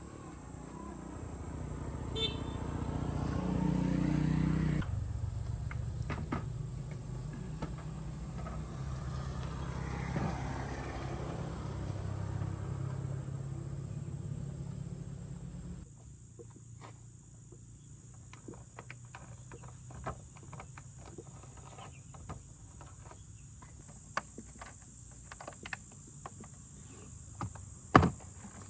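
A low, steady machine hum that swells over the first few seconds, holds, then cuts off suddenly about sixteen seconds in. Scattered light clicks and taps follow, with one sharp knock near the end.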